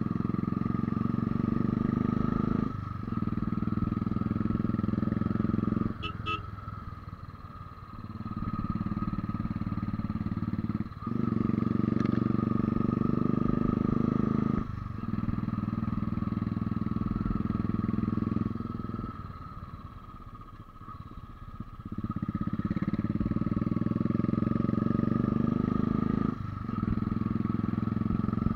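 Motorcycle engine running under way on a climbing mountain road, with a steady high whine beneath it. The engine note drops away about six times, briefly at most breaks and for a couple of seconds twice, as the rider eases off or shifts gear. The rider says the bike is short of power and speed in the thin air at altitude.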